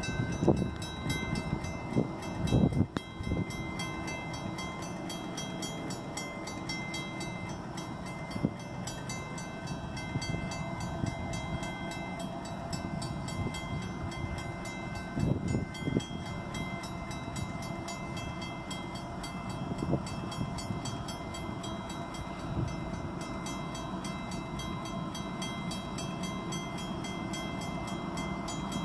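Railroad grade-crossing warning bells ringing steadily while the crossing is active for an approaching train. Under them is a low rumble, with a few brief thumps.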